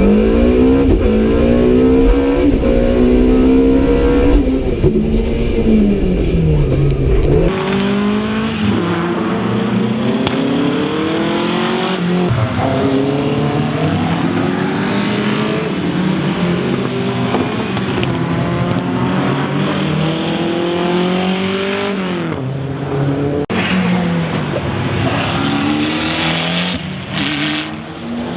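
Rally car engine being driven hard. It revs up and drops back again and again as it shifts gears and lifts off for corners. A heavy low rumble under it for the first seven seconds cuts off suddenly.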